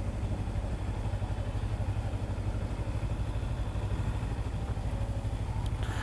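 Kawasaki Ninja 300's parallel-twin engine idling with an even, rapid pulse.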